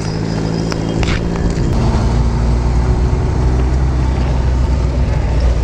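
Premier Padmini taxi's small petrol engine running, heard from inside the cab. It gets louder and steadier about a second in as the car gets going, and there is a short click around the same moment.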